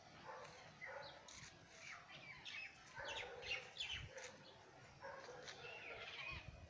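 Several small birds chirping and calling in quick short notes throughout, faint, with a few lower calls in the middle.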